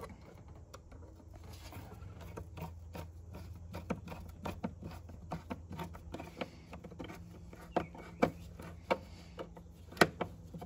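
Screwdriver turning the worm screw of a hose clamp, tightening it on the intake duct at the mass airflow sensor housing: a run of irregular small clicks and ticks, growing sharper and more frequent toward the end.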